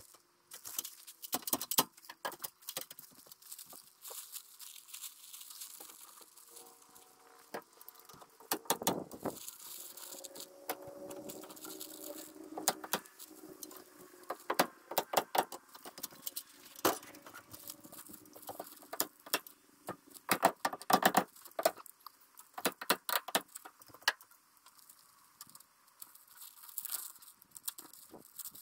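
Staple gun firing sharp clacks in quick runs, several times over, as weather shield paper is stapled around a window opening, with the paper rustling in between.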